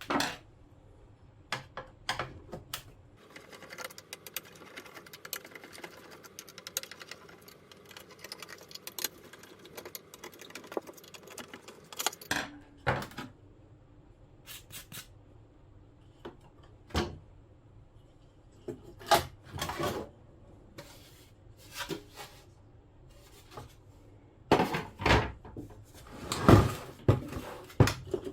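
Irregular clicks, knocks and clatter of plastic radio parts being taken out of the opened jobsite radio and handled, with a run of small rapid ticks in the first half and the loudest knocks near the end.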